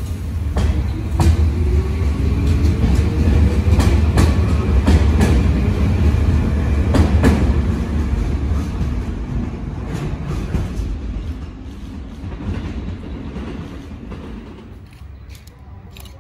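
Tsurumi Line 205-series electric commuter train pulling out and accelerating away. The motor whine rises in pitch over the first few seconds, the wheels clack over the rail joints, and the rumble fades as the train recedes.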